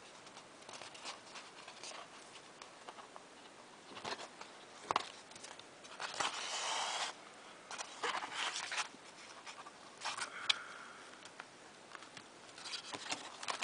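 Stiff painted card and paper rustling and tapping as it is handled while being hand-stitched with a needle and thread, with a longer swish about six seconds in.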